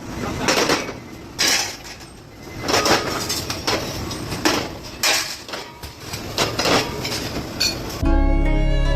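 A series of irregular clattering knocks of hard objects, about eight of them. Music with bowed strings comes in near the end.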